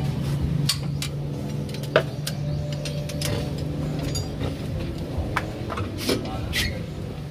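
Hand tools clinking and knocking against metal suspension parts under a car, in separate sharp strikes, the loudest about two seconds in, over a steady low hum.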